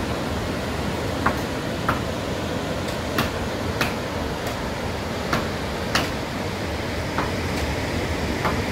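Steady seashore noise with short, sharp knocks at uneven spacing, about one a second.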